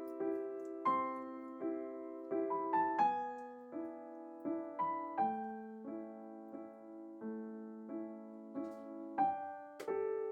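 Solo piano background music: a gentle melody of single notes and chords, each struck and left to ring as it fades.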